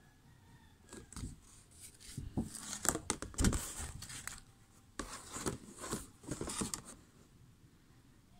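Handling noise from a colored-pencil box, a plastic case in a cardboard cover, being lifted and turned over: rustling, scraping and light knocks in two bursts, the first starting about a second in and the second around five seconds in.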